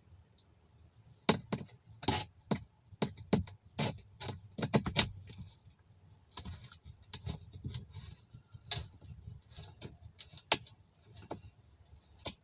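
Irregular sharp clicks and knocks, close by, over a faint steady low rumble that the recorder takes for a neighbour's bass coming through the walls.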